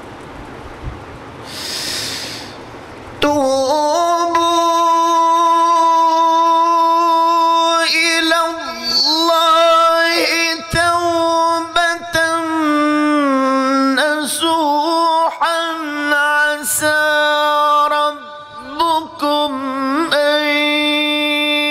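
A man reciting the Quran in a slow, melodic, drawn-out style, holding long notes with wavering ornaments and pausing briefly between phrases. The voice comes in about three seconds in, after a short breathy hiss.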